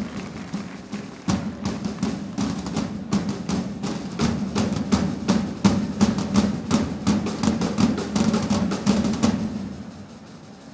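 Side drums of a flag-waving group's band playing a fast march rhythm of strokes and rolls, cutting off about nine seconds in.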